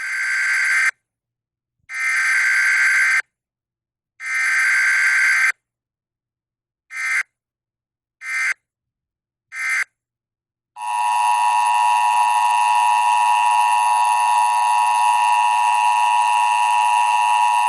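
Emergency Alert System signalling: three bursts of buzzy SAME digital header tones about a second each, then three short bursts of the same tones, then from about 11 seconds in the steady two-tone EAS attention signal (853 and 960 Hz) sounding continuously.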